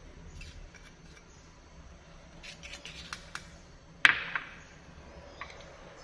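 Small ceramic bowl handled against a stainless steel mixing bowl as powder is emptied in: a few light clicks and taps, then one sharper knock with a short ring about four seconds in.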